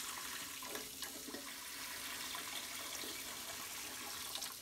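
Water being poured from a pitcher into a pressure cooker, splashing steadily onto the rack and around the jars standing in it.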